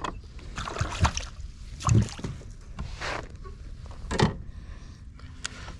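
Irregular knocks and bumps on a kayak on the water, about one a second, the heaviest about two and four seconds in.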